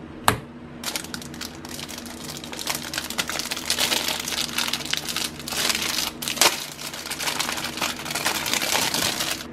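White slime being kneaded and pressed by hand, giving a dense stream of small sticky clicks and crackling pops, with one sharp pop just after the start. Near the end a clear plastic packet of black clay crinkles as it is opened.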